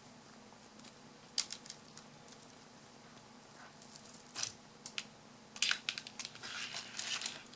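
Unboxing handling noise. A thin microphone cable and its plastic plug are handled on a table, giving scattered light clicks and taps. Near the end a clear zip-lock plastic bag crinkles.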